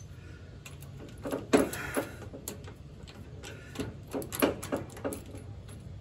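Scattered metallic clicks and clinks of lawn-tractor brake parts being worked loose and taken off by hand, in two clusters, over a low steady hum.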